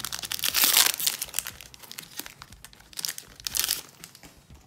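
Pokémon booster pack's foil wrapper being torn open and crinkled by hand, in two loud bursts of crinkling, the second about three seconds in.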